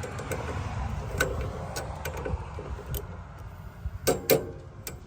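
Sharp metallic clicks and clinks of hand tools on a bandsaw mill's blade guides as they are set for clearance, the two loudest a little after four seconds in, over a low steady rumble.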